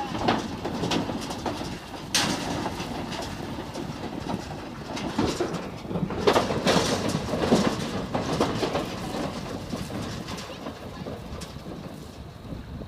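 Horse trailer rattling and clanking, with irregular metallic knocks over a steady rumble.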